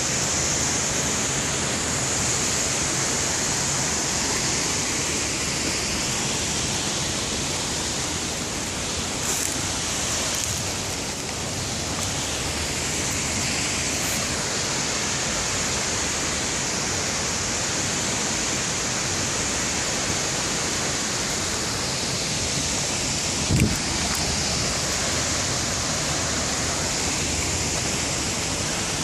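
River water pouring over an inflatable weir and rushing through the churning tailwater below: a steady, unbroken rush of water. A brief knock about two-thirds of the way through.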